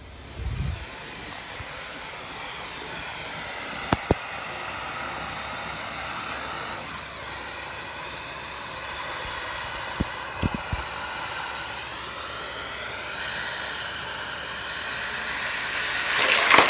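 Vacuum cleaner running steadily, its suction drawing air and water through a chain of drinking straws into a plastic bottle to empty a refrigerator drip pan. It comes on about half a second in and gets slowly louder, with a few sharp knocks and a louder rush near the end.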